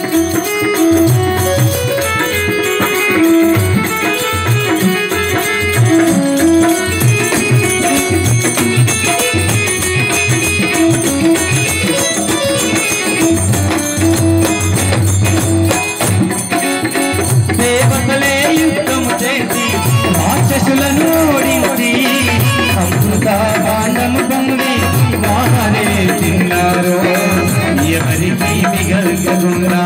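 Devotional bhajan music: an electronic keyboard plays a sustained melody over a hand-played barrel drum (dholak) and small jingling hand cymbals keeping a steady rhythm.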